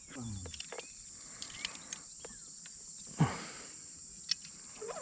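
Crickets' steady high-pitched chorus, with scattered light clicks and knocks and one louder thump about three seconds in.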